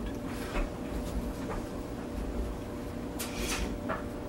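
Quiet room tone with a steady faint hum, and a few soft clicks about three seconds in.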